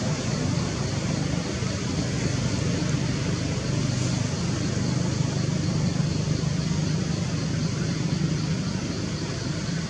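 Steady low rumble of vehicle traffic noise, continuous and even.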